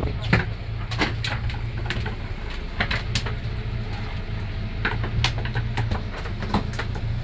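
Steady low hum of a fishing boat's engine, with irregular sharp knocks and taps scattered through it.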